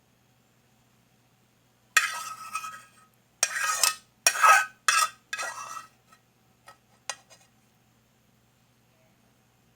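A metal utensil scraping and clattering against cookware: five rough strokes over about four seconds, then a few light clinks.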